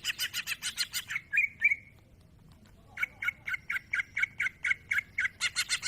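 Green leafbird (cucak ijo) in full song: a fast run of sharp repeated notes, about eight a second, ending in two slurred whistled notes. After a pause of about a second, another long fast run of notes follows.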